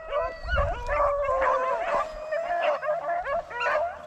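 A pack of rabbit-hunting dogs baying and howling together, several voices overlapping without a break: the pack giving tongue as it runs a rabbit's scent trail.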